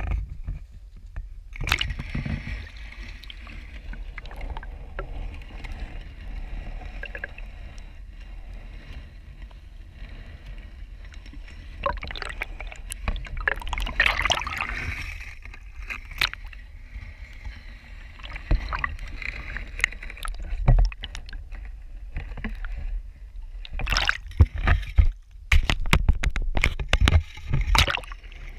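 Water sloshing and gurgling around a waterproof action camera as it is dipped into a river and held under the surface. A steady low rumble runs beneath many knocks and bumps on the camera housing, which come thickest near the end.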